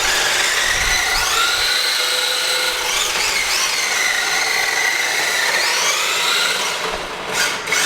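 Electric motor and drivetrain of a toy-grade 1:10 RC drift car whining: the pitch climbs about a second in, dips and rises briefly around three seconds, then drops back around six seconds as the throttle is eased.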